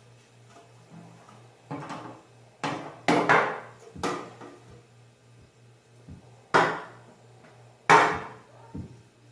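A greased and floured baking pan being knocked against a countertop, about half a dozen sharp knocks in irregular groups, to spread the flour and shake off the excess.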